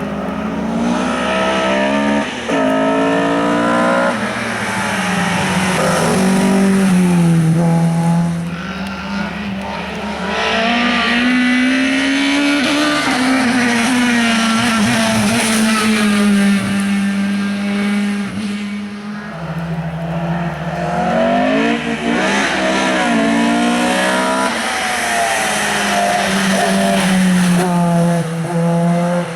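Hill-climb race car engine under hard acceleration, revving up and dropping in pitch at each upshift as it climbs through the gears. The sound eases off twice and builds again, as a car goes past and the next comes up the course.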